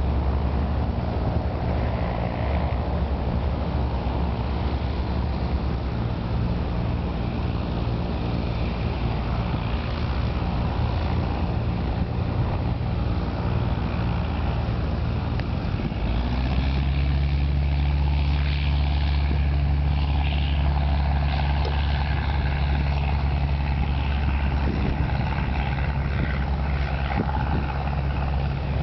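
Blimp's propeller engines running with a steady low drone; about halfway through the drone grows stronger.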